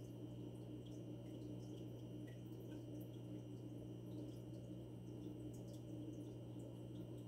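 Faint, steady hum of an aquarium pump, with light scattered ticks and drips of water.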